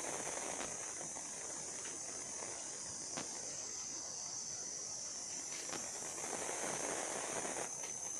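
Steady high-pitched insect trilling, with a few sharp clicks or snaps now and then.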